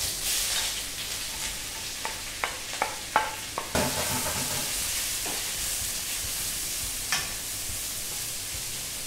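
Julienned vegetables and onion sizzling in hot oil in a steel wok as they are stir-fried. A few sharp clacks of the wooden spatula against the pan come between about two and four seconds in, and once more near the end.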